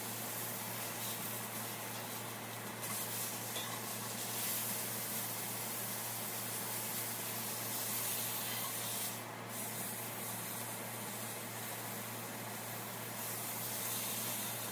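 Beef brisket searing in hot avocado oil in a cast iron skillet: a steady sizzle, easing briefly about nine seconds in.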